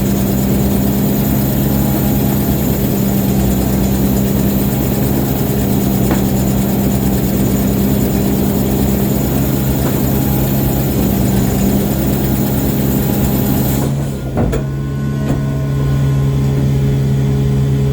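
Ship's engine running steadily, a loud low hum under a wide hiss. About 14 seconds in, the hiss drops away suddenly while the engine hum carries on.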